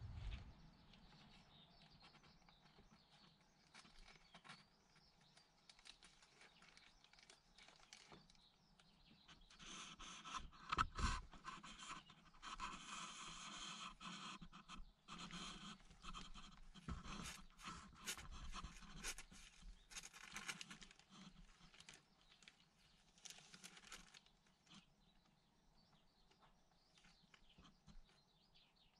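Near silence with faint rustling and scraping, louder and busier for about ten seconds in the middle.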